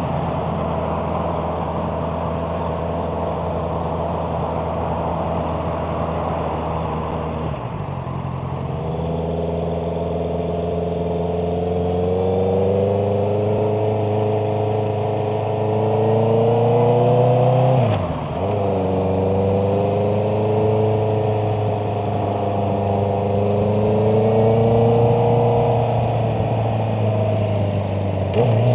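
Honda CBR650R's 649 cc inline-four engine under way: steady for the first several seconds, then climbing in pitch as it accelerates, dropping sharply at a gear change about 18 seconds in, and climbing again before easing off near the end.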